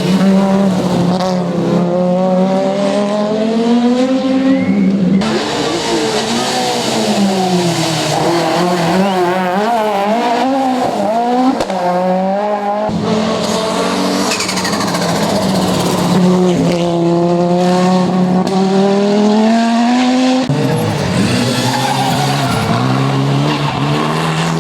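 Rally car engines revving hard at speed, the pitch climbing through each gear and dropping at the gear changes, with abrupt cuts between different cars every several seconds.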